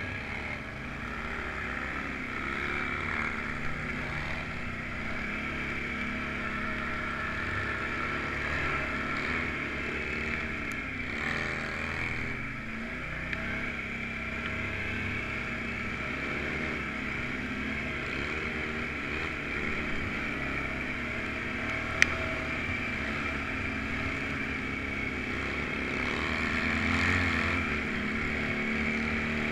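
Off-road vehicle engine running steadily under way, swelling slightly a little before the end. A single sharp click about two-thirds of the way through.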